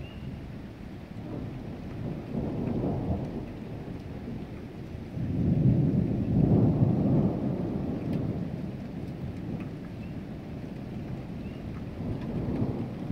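Thunder rumbling over steady rain. A small roll comes a couple of seconds in, then the loudest and longest roll from about five to eight seconds in, and another rumble near the end.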